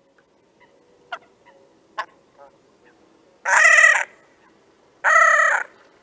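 Great crested grebes calling: a few faint short notes, then two loud, harsh calls of about half a second each, a second and a half apart.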